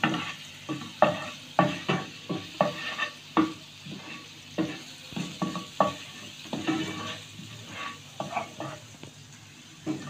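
Wooden spoon scraping and knocking against a non-stick frying pan, about one or two strokes a second, as garlic-ginger paste fries in a little oil with a soft sizzle underneath.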